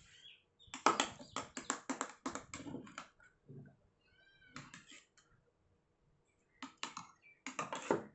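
Metal spoon scraping and clinking against a steel bowl while stirring and scooping foamy milk fizzing with Eno, in quick runs of clicks with short pauses between them.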